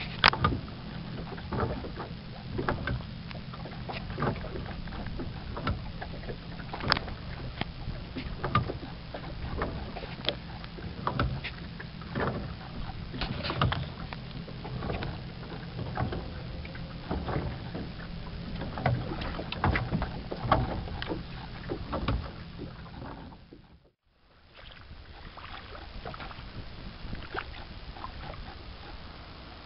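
Sculling oar worked over the stern of a small wooden rowing boat: irregular knocks and clicks of the oar shaft in its stern fitting over lapping water, with a steady low hum. The sound drops out briefly about three-quarters of the way through and comes back quieter.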